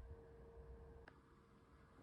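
Near silence: a faint steady hum that stops about halfway through, with one faint click as it stops, over a faint low rumble.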